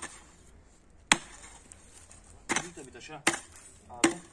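A pickaxe striking hard ground about four times, roughly a second apart, some blows ending in a short metallic ring as the blade hits buried concrete rubble in the garden soil.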